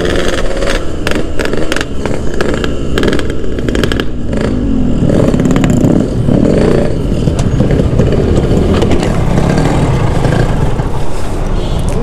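Yamaha RX-King two-stroke single-cylinder motorcycle engine running on the road, then easing off as the bike pulls up, with the revs rising and falling a few times.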